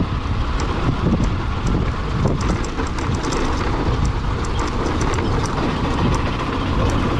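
Motorcycle riding along a gravel road: steady engine and tyre rumble mixed with wind on the microphone, with scattered small clicks of gravel.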